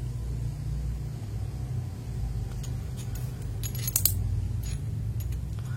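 Loose mechanical keyboard switches clicking and clinking as they are sifted through by hand, in scattered light clicks with a small cluster about two thirds of the way in, over a steady low hum.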